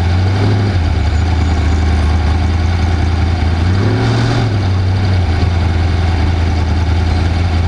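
Off-road race vehicle's engine running steadily, with a brief rise in revs about four seconds in.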